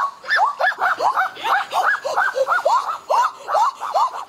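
A child's voice making rapid, repeated high cries, about three to four a second, each rising and then falling in pitch, running together like laughter.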